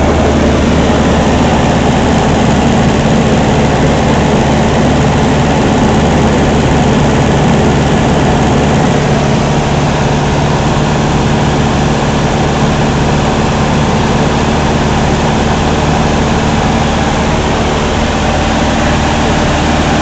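Luscombe light aircraft's piston engine and propeller droning steadily, heard from inside the cabin in cruise, with a rush of airflow over it.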